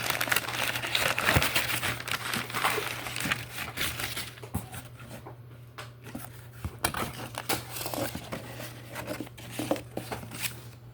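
Packing material crinkling and rustling as hands dig through a cardboard box, busiest in the first few seconds, then thinning to scattered crackles and light taps.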